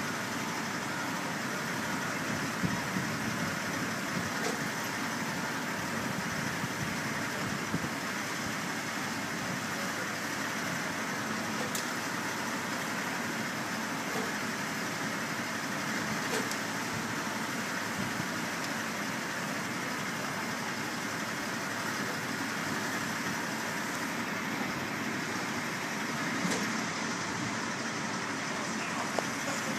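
Crane truck engine running steadily at idle, with a few faint clicks.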